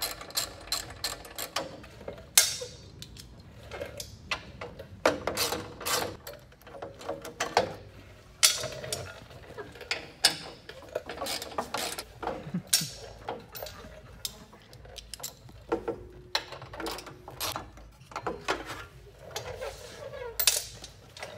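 3/8-inch hand ratchet with a T40 Torx socket clicking in short runs as the bolts of a plastic body panel are backed out, with louder knocks and rattles of tool and plastic between the runs. Near the end the plastic panel knocks as it is lifted off.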